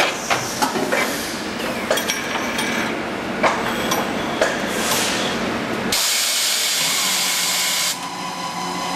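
Galdabini PAS 50 automatic straightening press working on a truck axle shaft: scattered sharp metallic clicks and knocks, then a loud hiss lasting about two seconds, starting about six seconds in.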